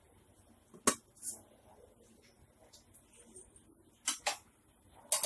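Metal serving utensil clinking against stainless steel dishes while curry is served onto a plate: a few sharp clinks, one about a second in and three close together near the end.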